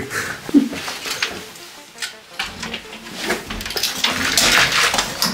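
Scattered knocks and clicks, then a steady rustling and scraping as a person climbs out through a window frame.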